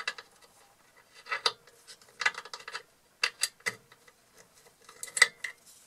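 Hands working at the scroll saw's blade clamp and sanding strip: a handful of short clicks and scrapes in irregular clusters, with quiet gaps between them; the saw is not running.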